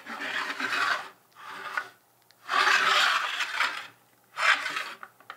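Plastic base of a toy basketball backboard sliding and scraping across a wooden tabletop as it is turned, in four rough rubbing strokes of different lengths, the longest about a second.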